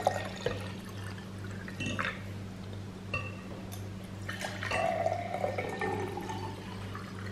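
Water poured from a glass jug into a drinking glass, with a light knock of glassware about two seconds in and a second pour about halfway through. A steady low hum sits underneath.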